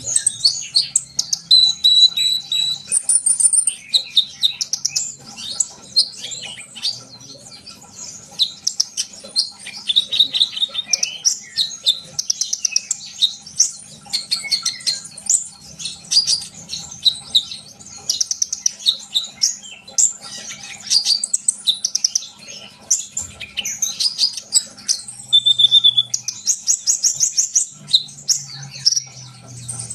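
Sunbird singing busily: a continuous run of rapid, high chirps, twitters and fast trills with only brief pauses.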